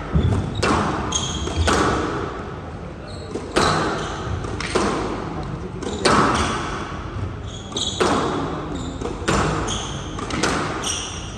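Squash rally: the ball is struck by racquets and hits the court walls about every one to two seconds, each hit echoing around the hall. Short high squeaks come from the players' shoes on the court floor.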